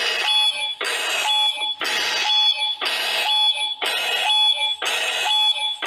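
Emergency alert alarm: a harsh, buzzing tone sounding in evenly repeating pulses. It is the attention signal for a tsunami warning broadcast.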